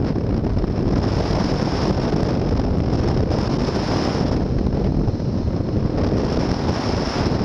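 Steady, loud wind rush buffeting the microphone of a camera mounted on a hang glider in flight, the airflow from the glider's airspeed.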